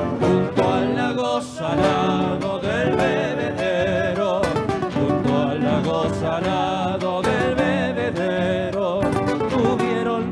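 Cuyo folk guitar ensemble playing a gato cuyano live: several acoustic guitars strumming the dance rhythm under a plucked melody line.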